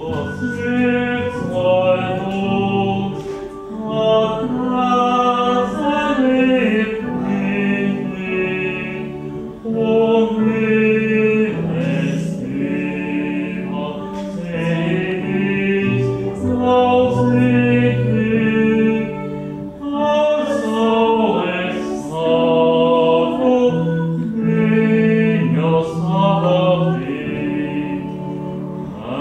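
A group of people singing a hymn together in Latvian, in long held notes.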